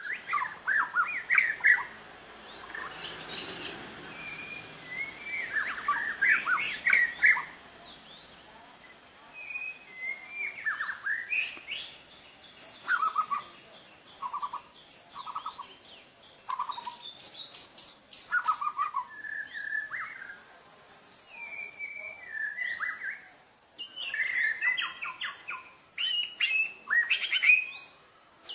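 White-rumped shama (murai batu) singing: a long run of varied whistled phrases, each a second or two long, with short pauses between them.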